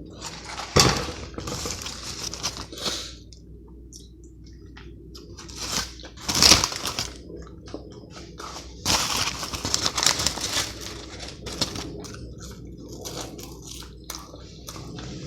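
Close-up eating and food-handling noises from a cheeseburger and fries: irregular crinkling, tearing and crunching, with sharp sudden spikes about a second in and around six and a half seconds in, and a longer dense stretch of crinkling and crunching after about nine seconds.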